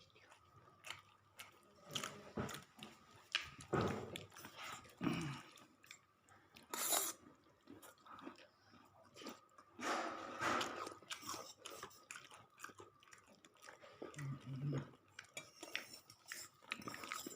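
A person chewing and crunching food in irregular bites.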